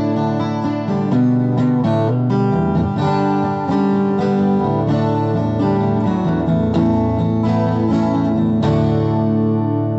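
Acoustic guitar music, a steady run of plucked and strummed notes ending on a final chord struck near the end and left to ring out.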